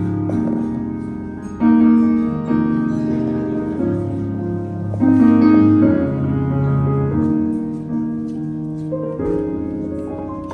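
Piano playing slow, sustained chords without singing, each chord struck and left to ring out: the opening of a slow ballad.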